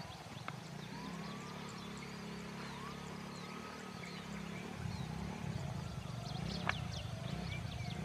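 Background music with low sustained tones that turn more rhythmic about halfway through. Many short, high chirps of small birds run over it, and one sharp click comes near the end.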